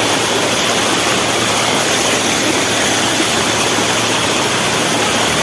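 Fast-flowing floodwater rushing across a submerged road, a loud, steady wash of water noise.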